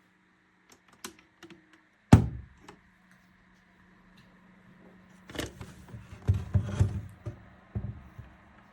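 A loud thunk about two seconds in, then a run of knocks and rattles near the end, over a steady low hum.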